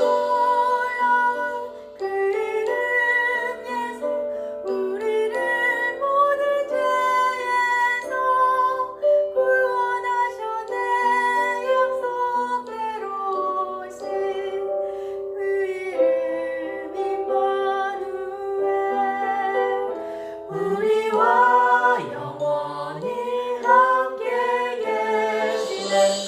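Christmas hymn medley music: a melody of held notes over a backing track.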